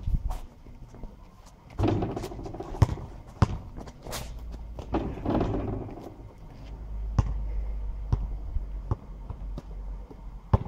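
Basketball bouncing on an asphalt court as it is dribbled: a run of sharp, irregular bounces, with sneaker scuffs and a low rumble in the second half.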